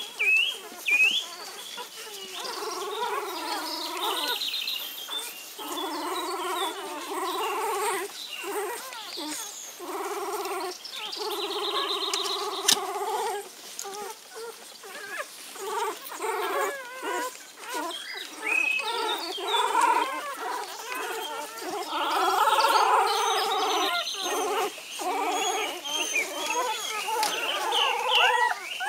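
Four-day-old Belgian Malinois puppies whining and squealing, several crying at once in drawn-out cries of about a second each, with short high squeaks between. A single sharp click about halfway through.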